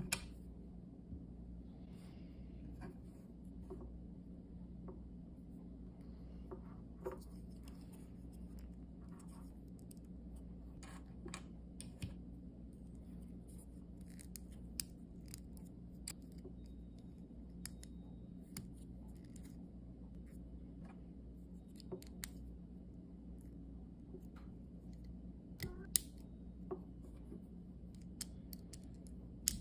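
Small plastic Lego bricks and parts being handled and pressed together: scattered sharp clicks and light rattles, with a couple of louder snaps near the end. A steady low hum runs underneath.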